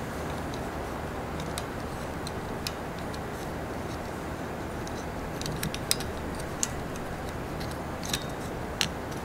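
Small plastic clicks and ticks as a bracketless wiper blade's adapter is worked onto the metal J-hook of a wiper arm, with several sharper clicks in the second half, over a steady low background hum.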